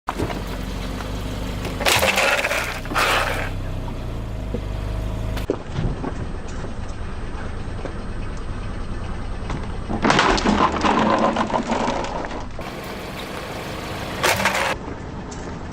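Car tyres rolling over and crushing crunchy objects: loud bursts of crackling and crunching about two and three seconds in, a longer stretch from about ten to twelve seconds, and a short one near the end, with the car's engine running underneath early on.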